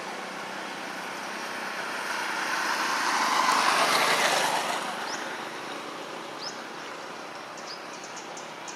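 A passing road vehicle, its noise swelling to a peak about four seconds in and fading away. A few short high chirps sound in the second half.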